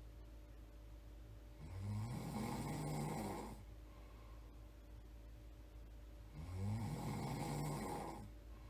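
A sleeping person snoring: two snores about five seconds apart, each lasting about two seconds.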